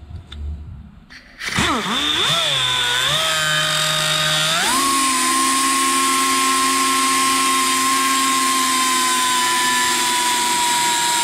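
Angle grinder starting about a second and a half in and cutting into a small bolt clamped in a vise. Its pitch wavers under load at first, then rises about four and a half seconds in to a steady high whine.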